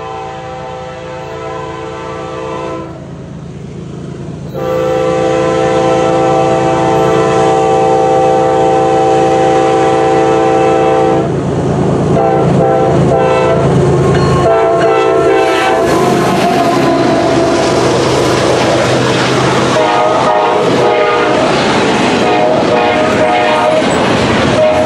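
Union Pacific diesel freight locomotive's air horn sounding a multi-note chord as the train approaches: a blast of a few seconds, a long blast of about six seconds, then a run of shorter blasts. Then the locomotive and double-stack container cars rumble past close by, with wheel clatter on the rails.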